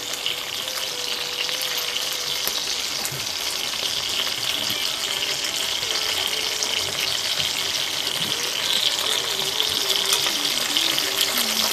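Besan-and-cornflour-coated rohu fish pieces shallow-frying in hot oil in a pan, a steady sizzle.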